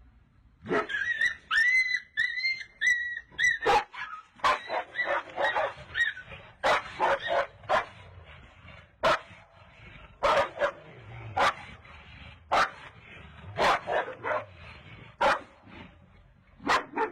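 A dog whining in high, wavering cries, then barking in a long series of short, sharp yaps, quick at first and then about one a second.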